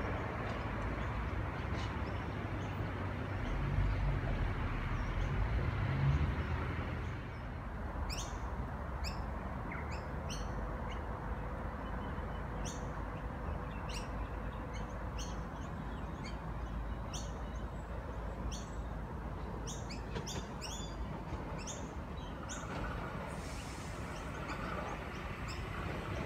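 Small birds chirping again and again in short, quick falling calls over a steady low rumble. The rumble is heavier in the first few seconds.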